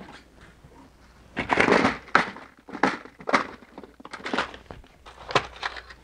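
Hand tools clattering as a pair of pliers is picked out and handled: a string of short knocks and rattles spread over several seconds.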